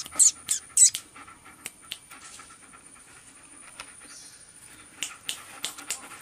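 A dog making short, sharp sounds: a quick run of them at the start, a few scattered ones, then another run about five seconds in.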